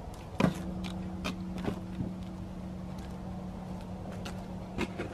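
A wood round knocks down into a steel fire pit about half a second in, followed by a steady low hum and a few scattered light clicks over a low background rumble.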